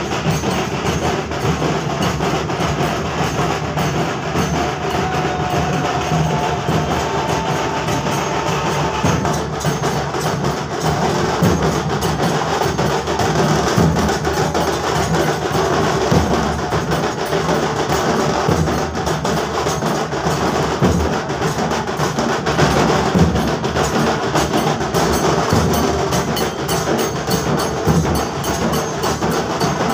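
Drums and percussion playing continuously and loudly in a steady rhythm, as a procession band plays.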